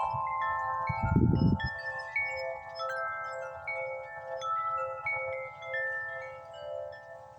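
Several wind chimes ringing in the wind, with new notes struck every fraction of a second and overlapping as they fade. A gust of wind rumbles on the microphone about a second in.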